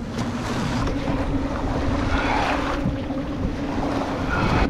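Small waves washing and splashing around a fishing kayak as it is launched off a sandy beach, with a louder rush of water about two seconds in. Wind rumbles on the microphone throughout.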